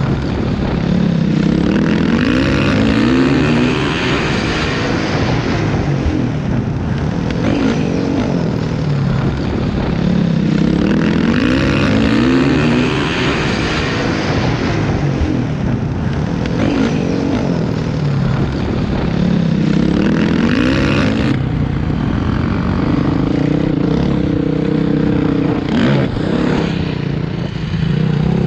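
Motocross bike engine heard from the rider's own bike, revving hard with the pitch climbing again and again as it accelerates, then backing off between runs.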